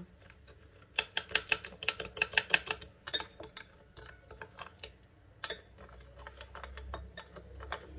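Metal spoon clicking against a ceramic bowl while stirring pink powdered-sugar glaze: a quick run of ticks, about seven a second, for roughly two seconds, then slower, scattered taps.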